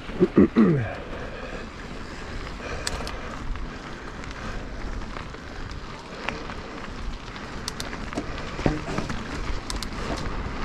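Mountain bike riding down a dirt singletrack: tyres rolling over the trail and wind on the microphone, with scattered clicks and knocks from the bike. The loudest sound is a brief vocal cry falling in pitch, about half a second in.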